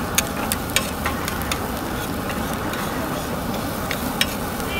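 Metal spatula clicking and scraping on a flat griddle as scrambled egg is chopped and turned, with quick irregular clacks, most of them in the first second and a half, over a steady hiss.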